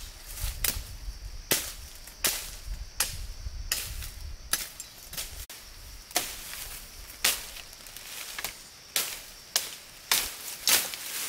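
A tool striking wood over and over, about a dozen sharp chopping knocks at an uneven pace of roughly one a second. A low rumble sits under the first half and stops about halfway through.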